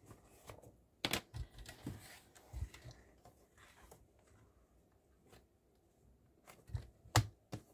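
Paper being handled on a sliding paper trimmer: a sheet rustling and sliding as it is lined up under the rail, with light clicks and taps. After a short lull, a cluster of sharper clicks comes near the end.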